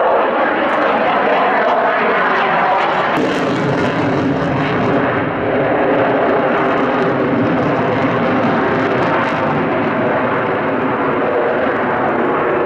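Loud, steady jet noise from an F-22 Raptor's twin afterburning turbofan engines as the fighter flies its demonstration overhead. A buzzing tone comes in under the noise about three seconds in.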